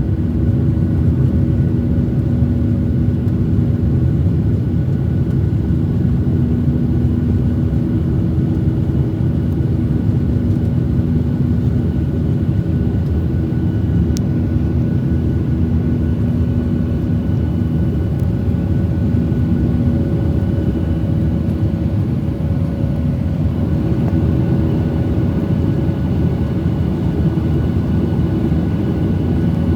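Steady cabin noise of a Boeing 737-800 in economy: a loud, even rumble from its CFM56 engines with a few steady hums running through it. One of the lower hums fades out about two-thirds of the way through.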